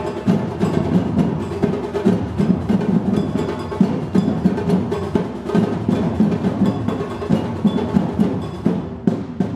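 Percussion ensemble playing a dense, steady rhythm: low drum beats under sharp, quick clicking strikes, with no singing.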